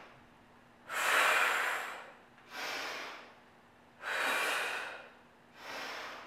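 A woman's deep, audible breaths, inhaling and exhaling in turn in time with yoga movements: four breaths, each about a second long, the first, about a second in, the loudest.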